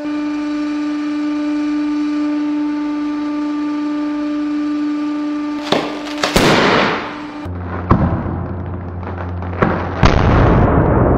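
Hydraulic press pump motor humming steadily. Then a tennis ball squeezed under the press ram bursts with loud bangs, about six seconds in and again about ten seconds in, each followed by a second or so of rushing noise that trails off, while the hum drops to a lower pitch under load.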